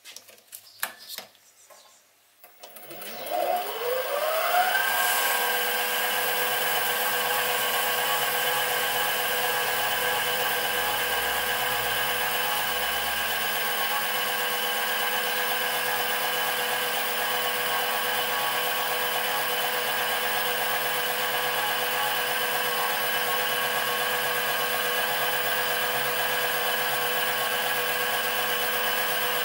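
A few clicks, then a Sieg SC3 mini lathe's motor and spindle spinning up, the whine rising in pitch over about two seconds, and then running at a steady pitch while a carbide insert faces and turns an aluminium bar.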